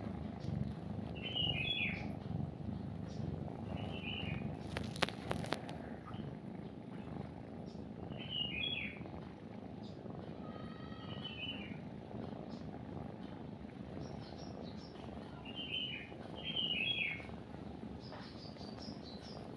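A kitten purring steadily while it nurses, with short bird chirps every few seconds over the purr. A sharp click comes about five seconds in.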